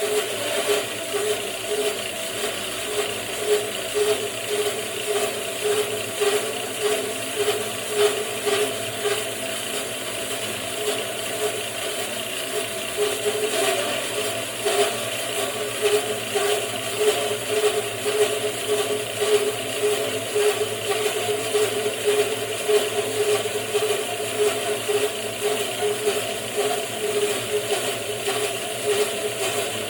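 Homemade bandsaw mill running steadily, its machinery giving off an even, rhythmic pulse with no break.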